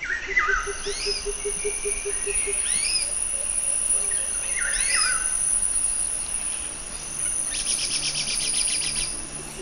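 Forest birds and insects: a bird repeats a short call of quick whistled up-and-down glides every two to three seconds over a steady high insect whine, with a low rapid pulsing in the first couple of seconds and a fast dry rattle for about a second and a half near the end. The sound fades in at the start.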